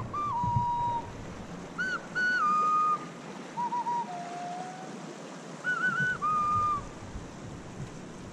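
A person whistling a slow tune: held notes that step up and down, a few opening with quick warbles, over a steady hiss of moving water.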